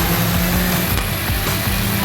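A car running, mixed with background music that has steady held bass notes.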